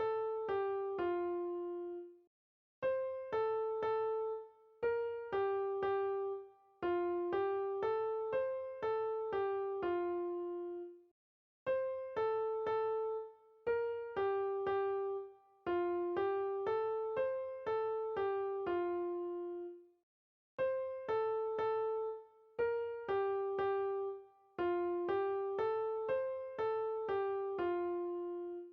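Background music: a gentle electric piano melody of single decaying notes, played in short repeating phrases with brief silent pauses between them.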